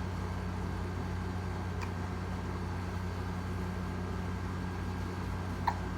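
A baby's single short hiccup near the end, a brief squeaky 'hic', over a steady low hum.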